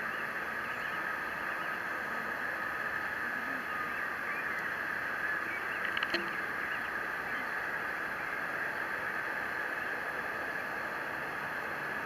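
Distant Boeing 787 turbofans at taxi power, a steady hiss with a faint whine. A brief clatter about halfway through.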